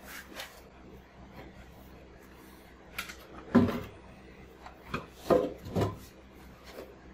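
Plywood panels being handled against a wooden frame: a few hollow wooden knocks and some rubbing as the sheets bump and slide together, the loudest knock about halfway through.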